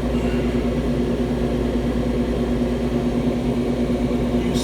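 Steady machine hum: a low drone with a constant mid-pitched tone and no change in speed, with a brief rattle near the end.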